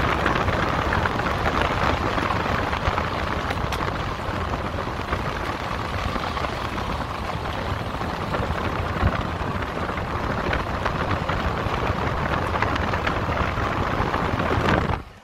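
Vehicle tyres rolling over a gravel road, with wind rushing across a microphone held outside the moving vehicle: a steady loud rushing noise with a few stone clicks. The noise drops away suddenly at the very end.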